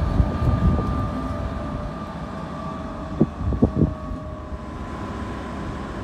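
A locomotive passing through a station with a steady rumble and a faint steady whine. Its wheels knock sharply over rail joints a few times about three seconds in.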